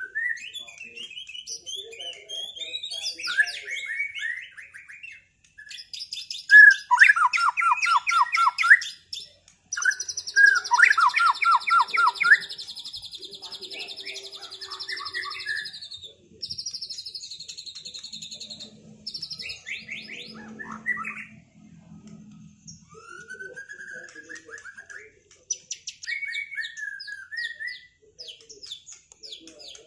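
White-rumped shama song: a varied run of whistles, fast trills and rapid strings of repeated notes, loudest in two quick bursts of repeated notes about a quarter and a third of the way through.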